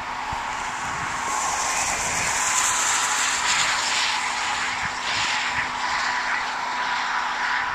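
Wind rushing over the microphone beside a road in a snowstorm, with the hiss of traffic on slushy pavement; a higher hiss swells and fades about two to three seconds in.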